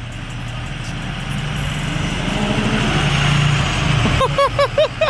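A vehicle engine running at low speed, growing steadily louder over the first three and a half seconds as it rolls closer. A person's voice calls out briefly near the end.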